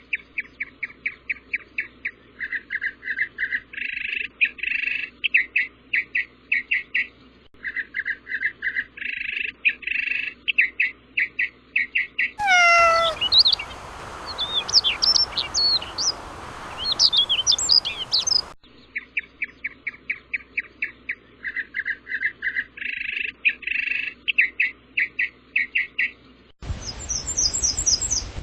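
Bird chirping in quick runs of short notes, the same pattern repeating over and over. Twice it cuts abruptly to a different passage with a background hiss and higher, quicker chirps; the first of these opens with a falling call.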